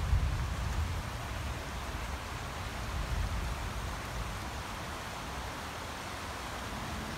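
Fast-running muddy floodwater pouring across a road, a steady rushing hiss, with low rumbles swelling near the start and again about three seconds in.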